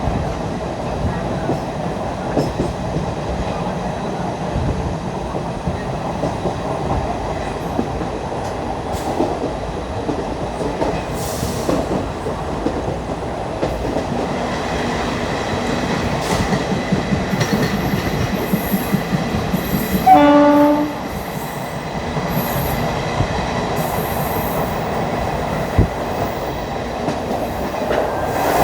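ICF passenger coach running steadily on the track with constant wheel and rail noise. About two-thirds of the way through, the hauling WCAM2 electric locomotive's horn gives one short, loud blast of under a second.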